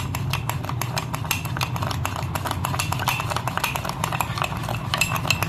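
Metal spoon rapidly and steadily clicking against the inside of a cup as it whips instant coffee, sugar and a little hot water into a thick paste: the hand-beating that turns the mixture light and frothy.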